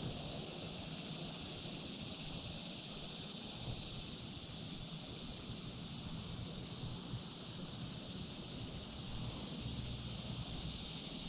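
Steady, high-pitched buzz of a summer insect chorus, with a faint low rumble underneath.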